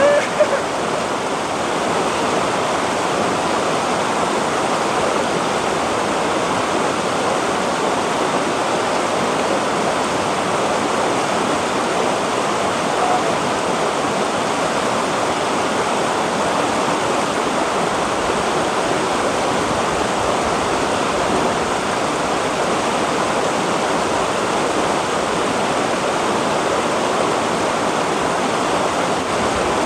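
Shallow rocky river rushing over boulders in small white-water rapids, a steady, even sound of running water.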